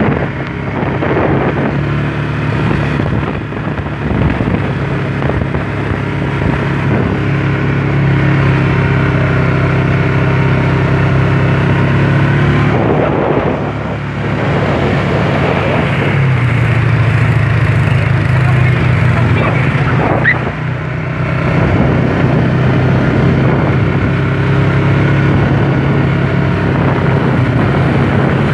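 Quad bike engine running steadily while riding along a dirt track, its note dipping and shifting briefly about halfway through.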